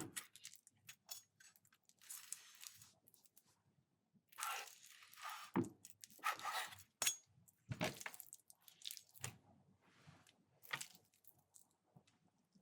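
A knife cutting through raw meat: irregular wet slicing and squelching strokes of varying length with short pauses between them.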